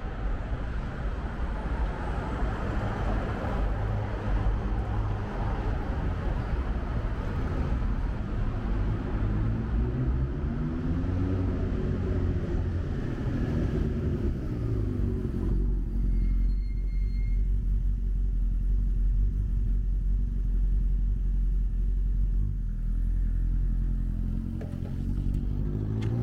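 City road traffic with motor vehicle engines running close by. About halfway through, one engine's pitch rises and falls as it revs. About two-thirds of the way in, a deep low rumble takes over.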